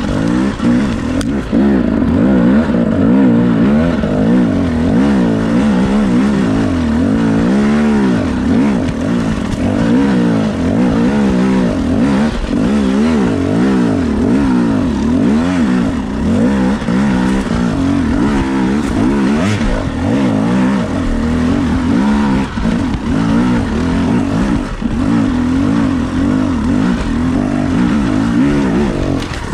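Enduro dirt bike engine lugging in second gear up a rocky, leafy trail. Its revs rise and fall constantly as the rider works the throttle to tractor over rocks and roots.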